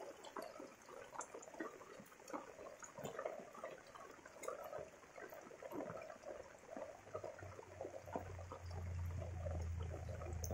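Steady rain falling, with many close drops ticking and water running on the road. A low rumble builds up from about seven seconds in.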